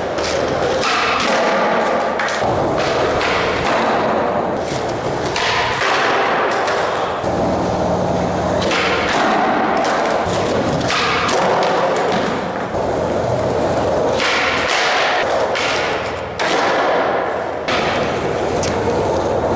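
Skateboard wheels rolling on a concrete floor with a continuous rumble, broken by repeated thuds and clacks of boards being popped, landed and slapping the ground.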